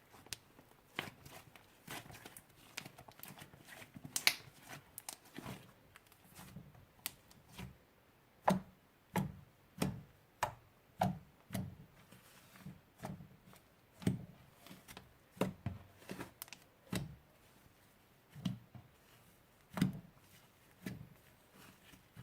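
Slime being squished and pressed by hand, making a run of irregular wet pops and clicks, roughly one a second in the second half.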